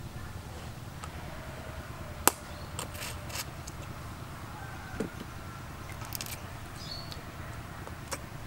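Close-up eating sounds: king crab meat being chewed and sucked from the shell, with scattered sharp clicks and smacks, the loudest about two seconds in.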